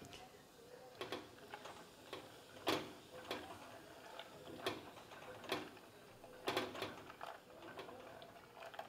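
A spatula knocking and scraping against the side of a glass pot while stirring sesame seeds in hot oil: faint, irregular light knocks a second or so apart.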